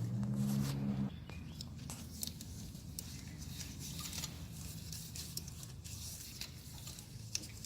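Scattered light clicks and taps of hands jiggling a Toyota Camry alternator and working its mounting bolt into place. A low hum cuts off suddenly about a second in.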